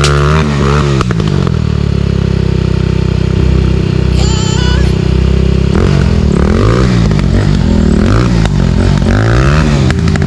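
Dirt bike engine revving up and down in quick blips, settling to a steady idle for a few seconds, then revving repeatedly again near the end. The bike is stuck partway up a steep climb.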